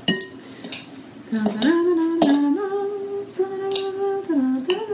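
Forks scraping and clinking in a bowl as rotisserie chicken is shredded. From about a second and a half in, a woman hums a short tune in long held notes that step up and down.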